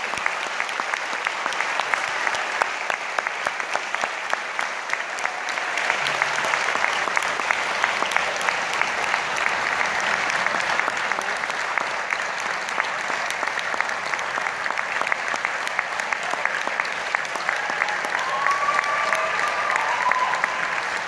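Concert audience applauding steadily, many hands clapping, with a few voices calling out near the end.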